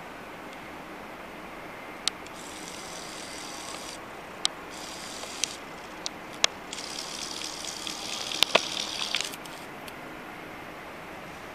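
Steady room hiss, with about eight sharp clicks spread through it and three stretches of high rustling hiss a second or two each, the last about two seconds long ending near three-quarters of the way through: handling noise from a handheld camera.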